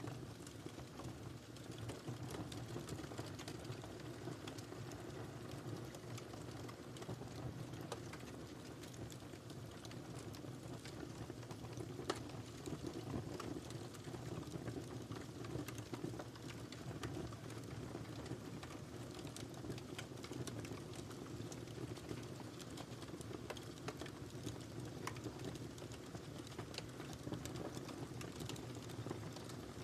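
Wood fire crackling in a fireplace: a steady low rumble of burning with frequent small, irregular pops and snaps, and one sharper pop about twelve seconds in.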